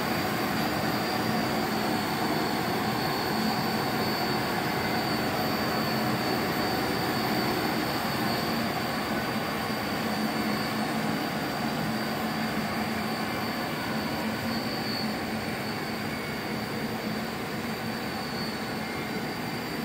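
Steady machinery drone of a pump room: water pumps running on the cold-water inlet, with a low hum and a thin high whine.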